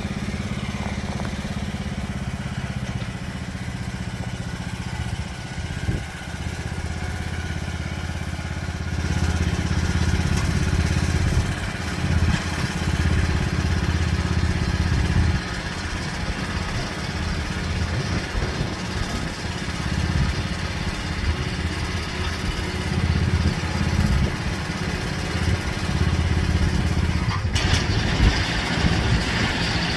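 Riding lawn mower engine running steadily, getting louder and rougher about nine seconds in.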